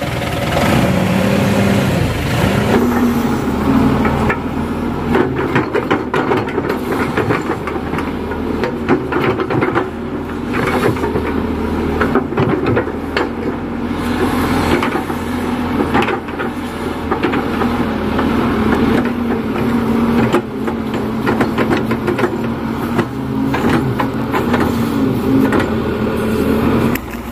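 Kato HD512 crawler excavator's diesel engine running steadily under load while it digs wet mud, with frequent knocks and clanks from the bucket and arm.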